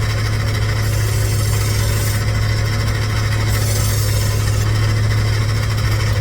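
Electric knife-sharpening machine running with a steady motor hum while a kitchen knife is ground on its 800-grit abrasive: a hissing, rasping grind that swells over two long passes, with a lull about two seconds in.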